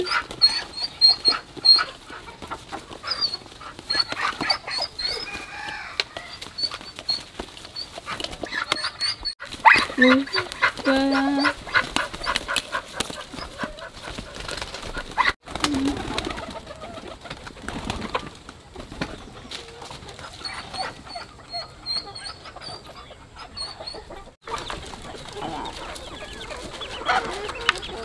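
Chickens: many short, high peeps scattered throughout, with a few lower clucks and brief voice sounds here and there.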